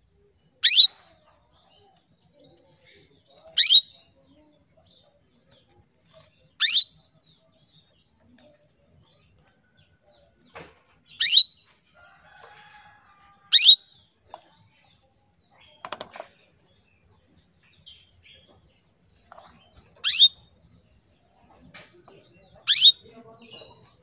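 Female canary calling: seven short, sharp call notes spaced a few seconds apart, with faint chirps between them. A brief thump about two-thirds of the way through.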